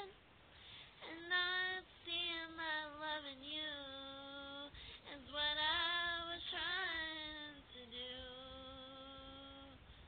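A woman singing solo, apparently without accompaniment, in several drawn-out phrases. A final held note fades out near the end.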